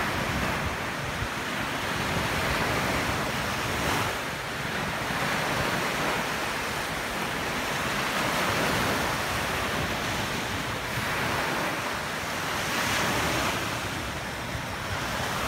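Small waves breaking and washing up a sandy beach: a continuous surf that swells and eases every few seconds.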